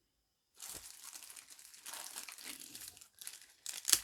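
Plastic wrapping around a speaker crinkling as it is handled. It starts about half a second in, with a louder crackle near the end.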